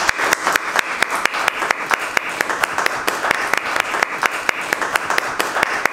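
Audience applauding, a steady patter of many hands clapping at the end of a lecture.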